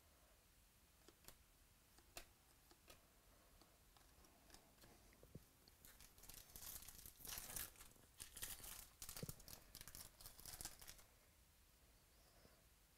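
A few soft ticks of trading cards being handled, then the foil wrapper of a Stadium Club baseball card pack torn open and crinkled for about five seconds.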